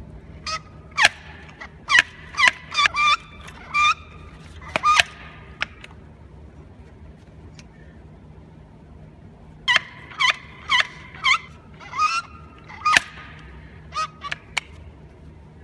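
Swaging tool pressing a swage fitting onto stainless steel wire rope: two runs of sharp clicks and short high squeaks of metal under load, the first lasting about five seconds, the second starting about ten seconds in, with a pause between.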